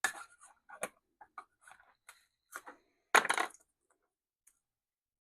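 Light clicks and knocks from a bottle of paint stripper and its cap being handled, with a louder clatter about three seconds in.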